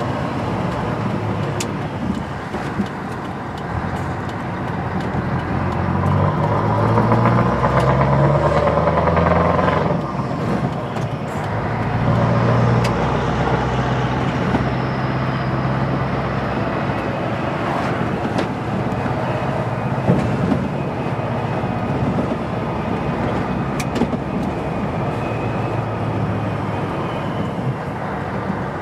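Scania 164 L 480's 16-litre V8 diesel heard from inside the cab on the move: the engine pulls with rising revs and grows louder, drops briefly about ten seconds in, pulls again, then runs on at lower revs.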